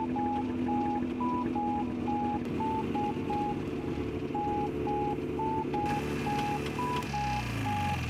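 Background music: a short electronic note beeping about two to three times a second, mostly on one pitch with an occasional step higher, over sustained low chords. Near the end the low chords slide down in pitch.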